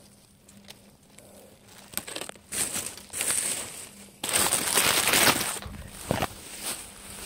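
Dry leaves, twigs and brush rustling and crunching as someone moves through forest undergrowth. It starts about two seconds in, comes in uneven bursts, and is loudest for just over a second around the middle.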